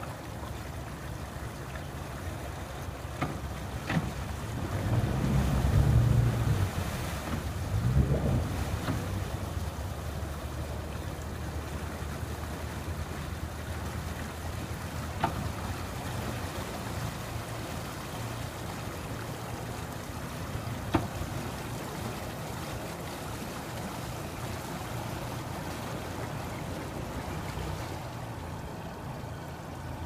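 Triple Mercury Verado 300 outboard motors running at low speed while docking under joystick control, with two louder surges of thrust about five and eight seconds in, then settling back to a steady low hum.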